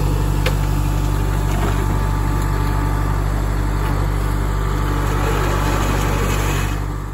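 Kubota compact tractor's diesel engine running steadily at a constant speed, fading out near the end.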